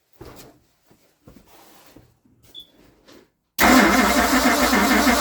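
Starter cranking a tri-power Ford FE V8 with a quick, even churn that begins suddenly about three and a half seconds in, after some faint clicks; the engine turns over without firing because there is no spark at the points.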